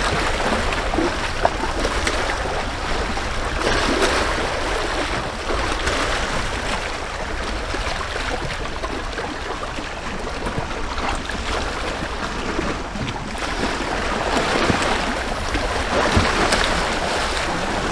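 Small waves lapping at the shore, with wind rushing steadily over the microphone.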